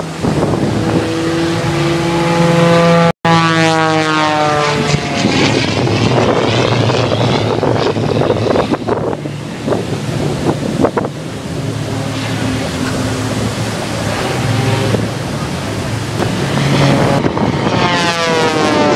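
Propeller aerobatic plane's engine passing overhead, its pitch falling as it goes by, once early and again near the end, over a steady wash of wind and surf. The sound cuts out for an instant about three seconds in.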